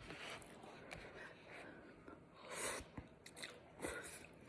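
A person chewing and biting a mouthful of noodles, with soft mouth clicks and a brief louder swishing sound about two and a half seconds in.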